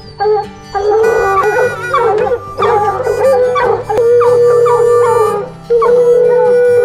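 Hunting hounds barking and bawling in short excited chops, then a long steady howl from about four seconds in, broken once briefly.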